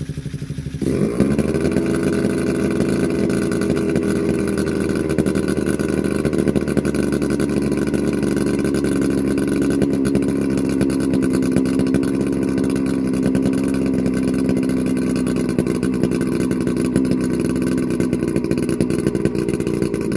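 Gasoline engine of a hybrid multirotor drone running loudly; it rises in pitch and grows louder about a second in, then holds a steady, even speed.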